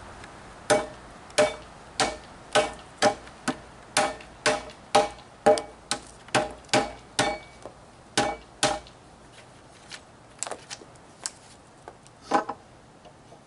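Hammer striking a wood chisel, knocking out the waste between saw kerfs in a pressure-treated yellow pine 4x6 beam. A run of sharp blows comes about two a second, then a few lighter taps and one harder strike near the end.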